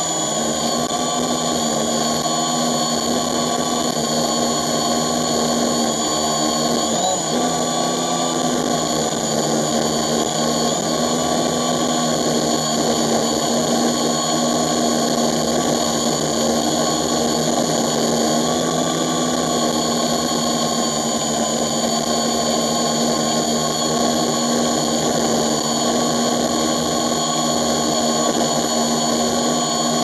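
A drone's electric motors and propellers whirring steadily, picked up close by the camera on board: a constant whine with several held tones that stays the same throughout.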